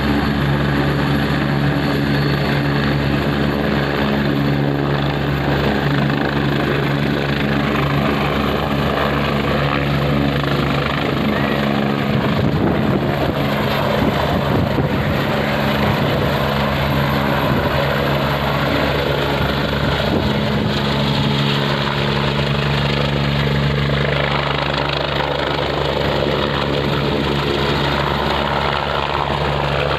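Helicopter lifting off from a grass field about halfway through and hovering low: a steady loud rotor beat with a faint high turbine whine.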